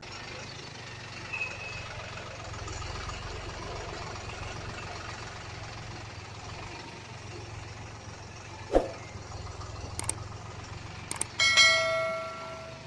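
Heavy machinery engine running with a steady low hum, a sharp knock about nine seconds in, and near the end a loud metallic clang that rings on and fades over about a second.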